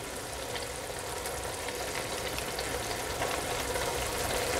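Thickened fish curry masala sizzling and crackling softly and steadily in a stainless steel pan just taken off the heat, growing slightly louder over the few seconds.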